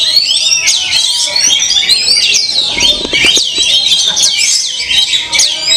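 Many songbirds singing at once in a dense, unbroken mix of rapid chirps, trills and sweeping whistles.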